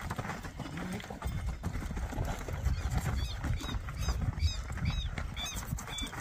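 Horses' hooves moving over soft corral dirt while working a steer, under a steady low rumble. From about halfway through, a bird chirps repeatedly, roughly twice a second.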